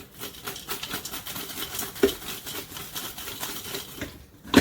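Seasoned steak fries rattling and tumbling as the Ninja Foodi's air-fryer basket is shaken halfway through cooking: a dense patter of many small knocks for about four seconds, with a heavier knock about two seconds in.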